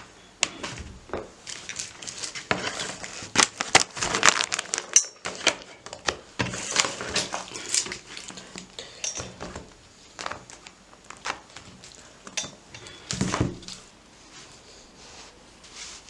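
Dishes and cutlery clinking and clattering as they are handled, busiest in the first half, with a louder clatter about 13 seconds in.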